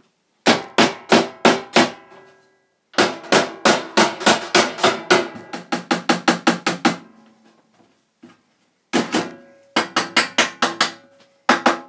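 Small hammer striking a wooden block held against a sheet-metal computer case to beat out a dent. The blows come in bursts: a quick handful, then a long run at about three to four a second, a pause, and more near the end, with short tones lingering after some strikes.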